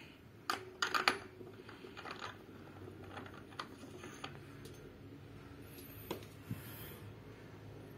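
Metal clinks, knocks and scraping as an aluminium balancer disc is fitted onto the crankshaft end of a Suzuki RC engine, with the sharpest knocks about a second in and lighter clicks after.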